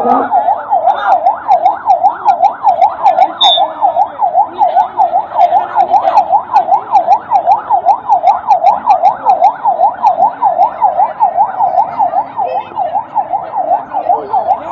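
Ambulance's electronic siren sounding a fast yelp, its pitch sweeping rapidly up and down about three times a second without a break.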